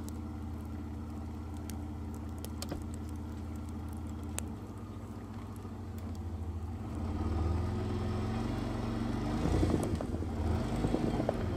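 A 4x4 SUV's engine idling with a few light clicks. About seven seconds in, the engine note rises and grows louder as the vehicle moves off through snow.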